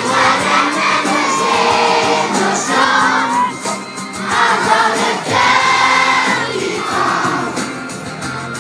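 A large crowd of children singing a song together in unison, in phrases of held notes.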